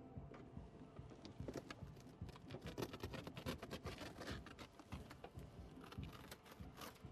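Faint, irregular clicking and rattling, densest in the middle: gloved hands working among loose parts and debris inside a car whose roof has been cut open.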